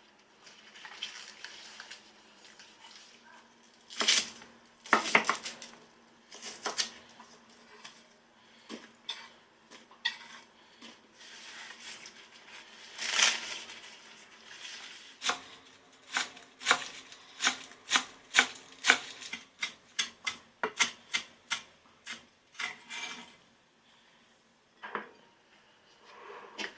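Kitchen utensils and dishes clinking and knocking during food preparation: scattered sharp knocks, then a run of quick taps, about two or three a second, in the middle.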